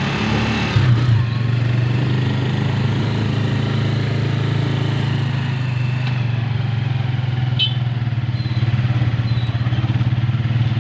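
Motorcycle engine of a tricycle running steadily on the move, heard from inside the sidecar, with a brief knock about a second in.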